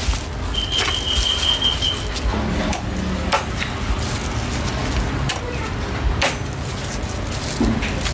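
Scattered sharp knocks and clatters, several seconds apart, over a steady low rumble. A steady high-pitched tone sounds from about half a second in and stops after a little over a second.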